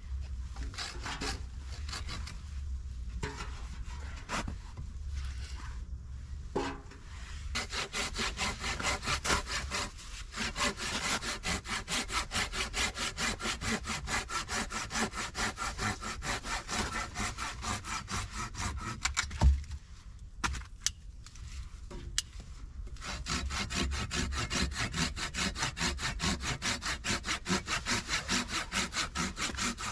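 Knife blade scraping and shaving down a stick of wood in quick, even strokes, about three a second. The strokes are sparser and irregular at first, and stop for a few seconds after a single sharp knock a little past the middle.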